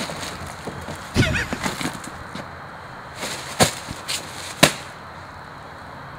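Wooden board being smashed down and breaking: a few sharp cracking hits, the last two the loudest.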